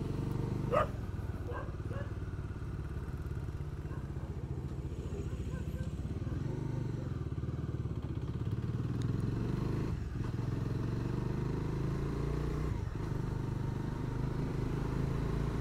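Bajaj Dominar 250's single-cylinder engine running under way, gradually picking up speed on a rough lane, with a brief louder sound about a second in.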